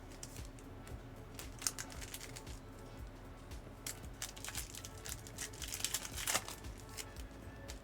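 Trading-card pack wrappers crinkling and cards being handled in short scattered bursts, over quiet background music.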